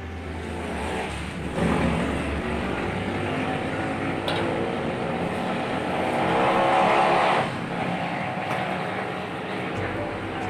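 Passing road traffic: vehicle engines running by, one passing loudest about six seconds in before fading away about a second and a half later.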